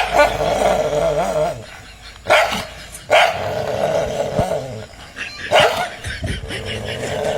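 Dog barking and growling: four sharp barks, each running into a long, wavering vocal sound.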